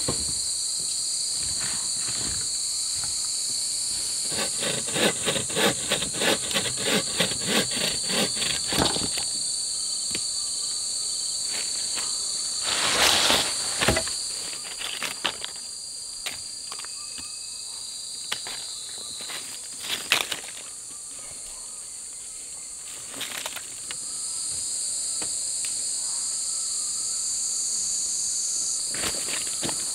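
Insects chirring in a steady, high-pitched drone that fades away partway through and returns near the end. Over it come a run of quick, even strokes for about five seconds early on, then a few scattered louder knocks.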